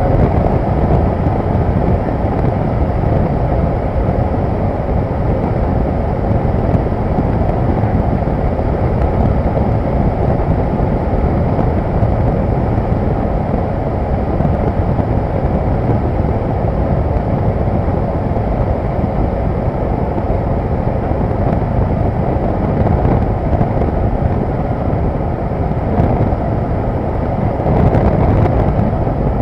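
Cessna 172's piston engine and propeller droning steadily in flight, heard from inside the cabin, mixed with wind noise.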